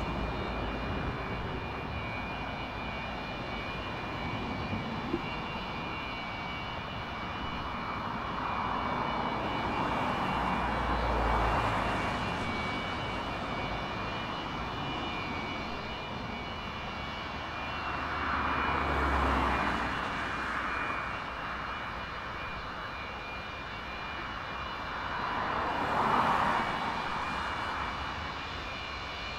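Antonov An-124's four D-18T turbofan engines running at taxi power: a steady rushing whine with several high steady tones over it. The sound swells three times, about a third of the way in, near two-thirds of the way, and again near the end.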